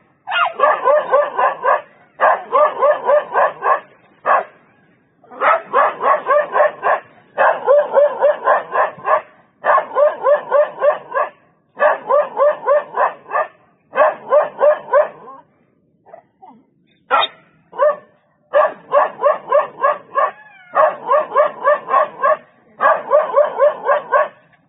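A tan dog barking at a leopard, fast and without letup, in runs of quick barks about two seconds long with short breaks between them. There is a longer break about two-thirds of the way through.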